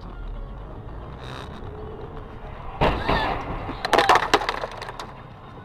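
Steady road noise from inside a moving car, then a sudden loud bang about three seconds in and, a second later, a quick cluster of sharp cracks.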